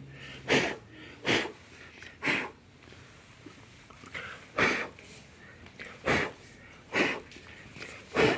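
A person blowing about seven short, hard puffs of air by mouth, irregularly spaced, to clear dust and loose grit out of tile grout joints.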